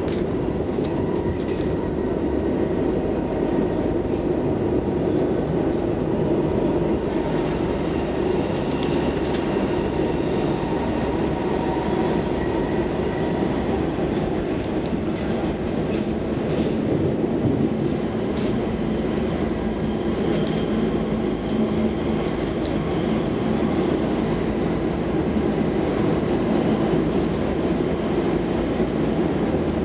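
Stockholm Metro C14 train running steadily, heard from inside the passenger car: a continuous low rumble from wheels and track, with occasional sharp clicks.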